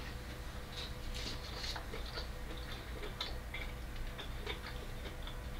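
Faint, irregular crunching clicks of someone chewing crunchy raw vegetables with the mouth closed, over a steady low hum.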